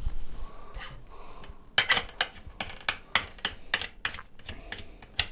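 A run of sharp, irregular clicks and taps, about three a second, starting nearly two seconds in: hands working the camera set-up to raise the view.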